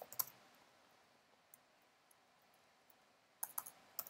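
Computer keyboard keystrokes: a few clicks at the start, a pause, then a quick run of keystrokes near the end.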